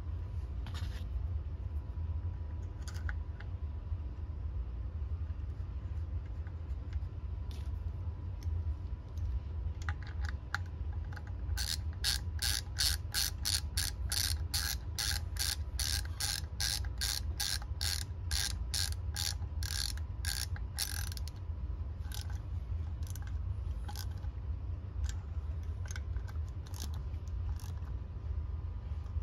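A hand ratchet clicking in a quick even run, about three to four clicks a second for some ten seconds in the middle, as the through-bolts joining the two halves of a Ford alternator case are run in. Scattered single clicks of tool handling come before and after.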